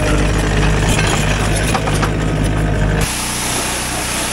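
A Takeuchi compact track loader's diesel engine idling steadily. About three seconds in this cuts abruptly to the loud, even hiss of a pressure washer spraying, with the pressure washer's small engine running underneath.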